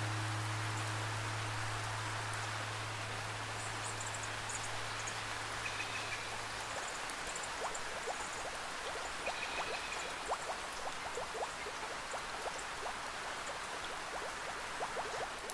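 Rainforest ambience of steady rain and running water. A low, sustained instrument tone fades out about halfway through. After that, many short rising plinks and chirps sound over the rain.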